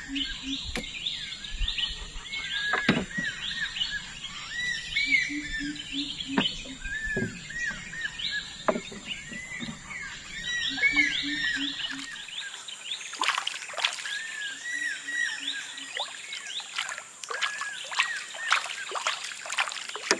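Tropical riverside birds calling: many quick, repeated arched whistled notes go on throughout. A low call of four or five quick hoots recurs several times, and a few light knocks come now and then.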